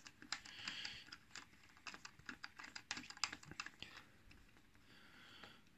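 Faint, irregular clicks and light rubbing from a vape box mod and an Uwell Crown 3 tank being handled, the clicks sometimes coming in quick clusters.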